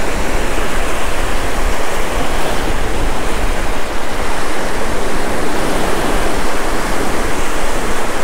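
Small surf waves breaking and washing up a sandy beach, a steady loud rush, with wind rumbling on the microphone.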